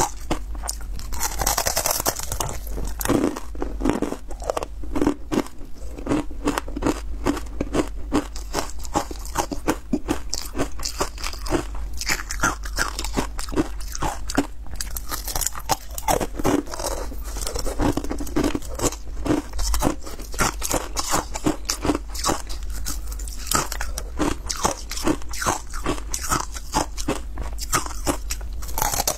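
Ice coated in matcha powder being bitten and chewed close to the microphone: a dense, continuous run of crunches as the ice cracks and is ground between the teeth.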